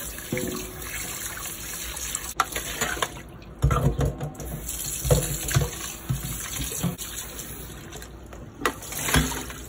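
Faucet running into a stainless steel sink while peeled shrimp are swished by hand in a bowl of water, then splashing and sloshing as the shrimp are tipped into a plastic colander to drain, loudest a few seconds in.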